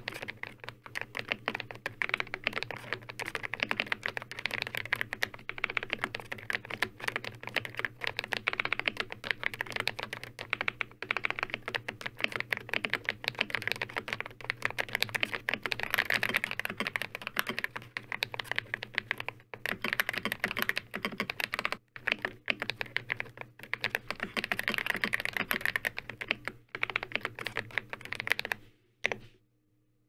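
Fast, continuous typing on an Ikki68 Aurora R2 mechanical keyboard fitted with linear switches, with dense irregular keystroke clacks. There are a few brief pauses in the second half, and the typing stops shortly before the end.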